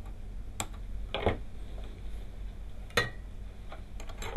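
Small flush cutters snipping the excess wire leads of freshly soldered components on a circuit board: a few sharp clicks, spaced irregularly about a second or more apart.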